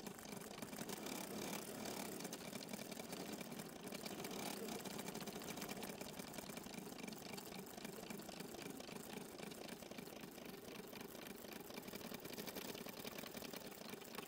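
Embroidery machine stitching, running steadily with a rapid, even chatter of needle strokes.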